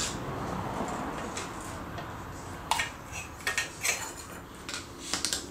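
Light metal clinks as a screwdriver and a washer are worked off the drive shaft in a MerCruiser Alpha One Gen II outdrive's upper housing. A few sharp clinks come from a little under three seconds in, bunched around the middle and again near the end.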